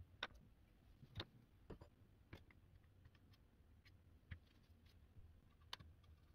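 Near silence: low room tone with about half a dozen faint, irregularly spaced clicks and taps.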